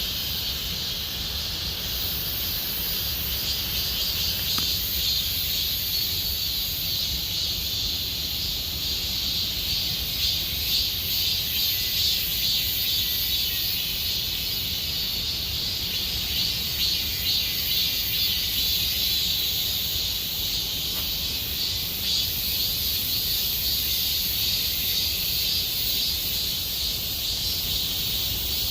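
A chorus of cicadas singing continuously: a dense, high, steady buzz with a fine pulsing texture that swells slightly now and then.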